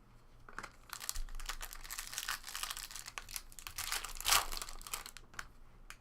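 Trading card packaging crinkling and crackling as a pack is opened and the cards are handled. It is loudest about four seconds in.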